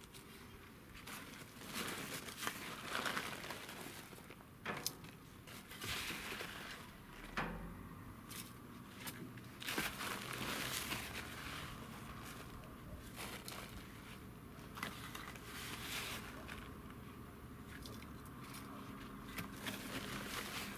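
Soil being scooped with a hand trowel and pressed down by gloved hands around a seedling in a pot cut from a metal gas bottle: irregular crunching and scraping, with a few sharp clicks.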